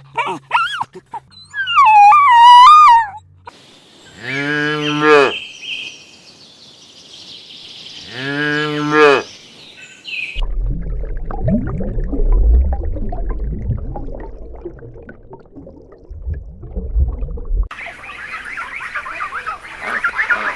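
A high wavering call, then a cow mooing twice, a few seconds apart. After that comes a long low rumble, then a fainter hiss.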